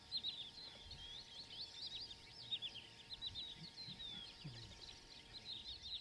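Birds chirping and twittering: many short, high call notes, often falling in pitch, overlapping without a break.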